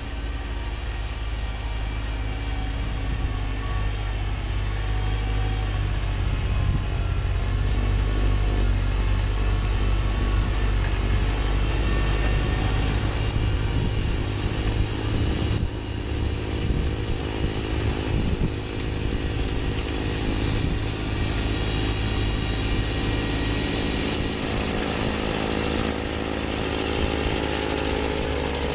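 A Kubota B2601 compact tractor's three-cylinder diesel running steadily under load while its front-mounted mid-PTO snowblower churns through deep snow and blows it out the chute. It works its way closer, and the sound grows a little louder over the first several seconds.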